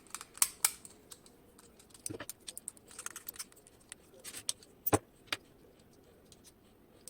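Scattered small metallic clicks and taps at irregular intervals as a Goal P pin-tumbler lock is taken apart.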